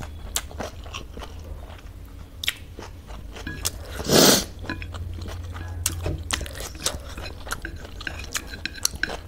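A person chewing a mouthful of stir-fried chowmein noodles, with many short, wet mouth clicks and smacks. About four seconds in comes one loud, short, breathy rush.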